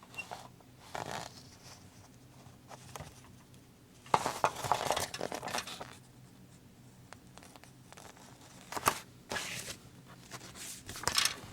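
Paper rustling and crinkling in several short bursts, the longest about four seconds in lasting a couple of seconds, as the pages of a model kit's instruction booklet are handled and turned.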